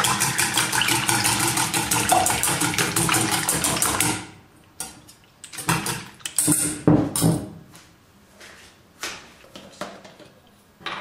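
Wire whisk beating raw eggs in a stainless steel bowl: a fast, rhythmic metallic clatter that stops about four seconds in. After that come a few separate clinks and knocks of metal on the bowl.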